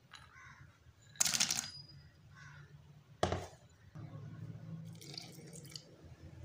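Almonds tipped into a plastic blender jar, rattling briefly about a second in, then a single sharp knock. Near the end, milk is poured into the jar.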